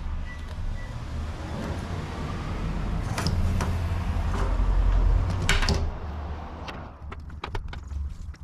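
A Milwaukee portable compressor runs steadily, pumping air into a freshly mounted motorcycle tyre to seat its bead. Sharp snaps come about three seconds in and again about five and a half seconds in. The compressor stops about six seconds in, followed by a few light clicks.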